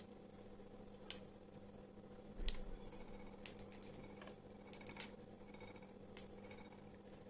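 Linden and plantain leaves being cut up by hand: a handful of sharp, separate snips a second or so apart, over a steady low hum.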